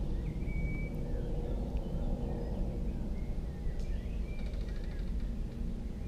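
Woodland birdsong: scattered short bird calls and chirps, with a rapid trill about four and a half seconds in, over a steady low rumble.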